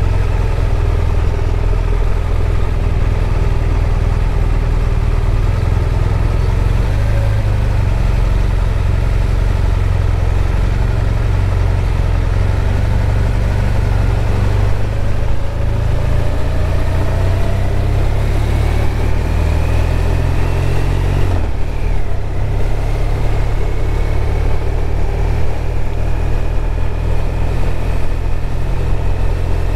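BMW R1200RT's boxer-twin engine running at low town speed, then pulling away with its note rising. The note drops briefly at a gear change about two-thirds of the way through, then rises again.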